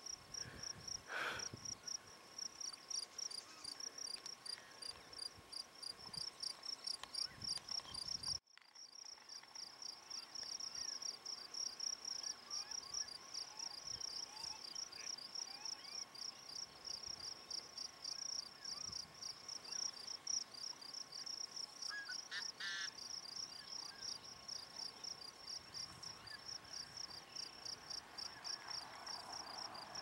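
Insect chirring: a high, fast, evenly pulsing trill that goes on steadily, dropping out for a moment at a cut about a third of the way in. A brief chirp comes near three-quarters of the way through.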